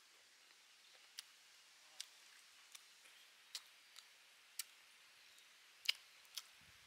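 Crisp cracks and crunches of deep-fried chicken feet being bitten and pulled apart: about eight or nine short, sharp cracks at irregular intervals over a faint hiss, the loudest a little before the end.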